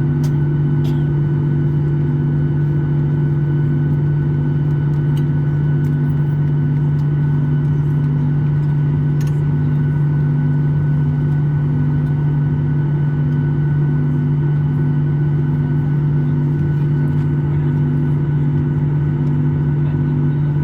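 Steady cabin drone of a Boeing 737-800 in flight: the CFM56-7B engines and airflow make a loud, even hum with a slow regular throb, a little more than once a second.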